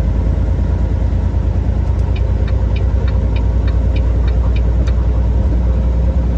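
Semi-truck engine and road noise heard inside the cab at highway speed: a steady low rumble. Midway a run of light, even ticks about three a second lasts about three seconds.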